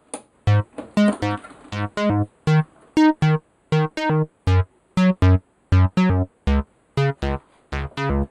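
Instrumental background music: a line of short, separate notes, about three a second, each dying away quickly.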